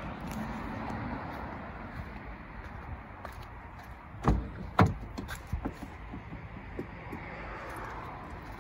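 Steady outdoor background noise, with two sharp knocks half a second apart about four seconds in, then a few lighter clicks.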